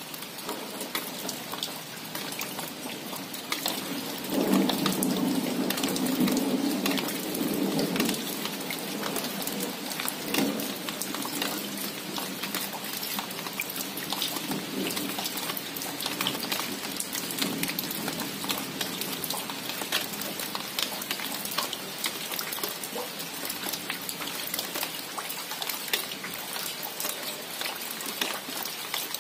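Steady rain pattering on leaves, with many individual drops ticking sharply. About four seconds in, a louder low rumble swells for several seconds and then returns briefly.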